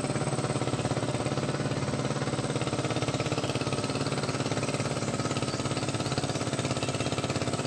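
An engine running steadily at an even speed with a fast, regular pulse.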